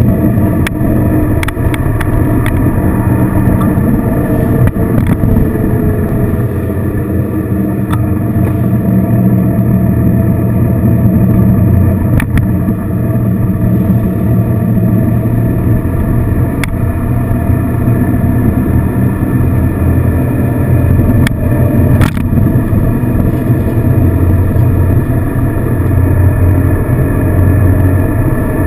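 Motorcycle engine running at steady cruising speed with wind noise, heard from behind the windscreen, with a few brief sharp clicks.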